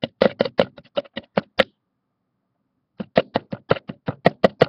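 Rapid knocking on a hard surface close to the microphone: a quick run of knocks, about six a second, breaks off about a second and a half in, then a second run starts about three seconds in.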